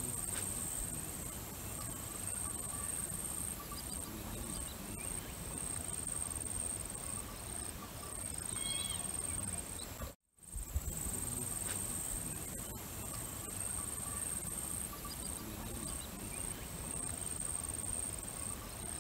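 Insect chorus trilling steadily in a high, continuous buzz with brief regular dips, over a low outdoor rumble. A few faint chirps come about nine seconds in, and the sound cuts out for a moment about ten seconds in before resuming.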